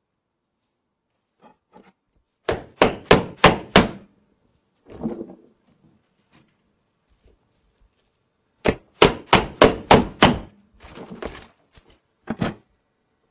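Food being chopped directly on an iPad's glass screen used as a cutting board: two quick runs of sharp chopping strikes, about four a second, five in the first run and seven in the second, with a softer scrape between them and a single strike near the end.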